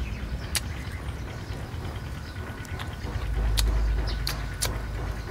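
Close-up chewing of crunchy star gooseberries: a handful of sharp, crisp crunches spread over the few seconds. Under them, a low rumble swells for about a second past the middle.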